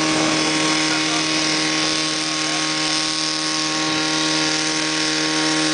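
Portable fire pump engine running steadily under load, driving water through the attack hoses, with a steady hiss over its even note.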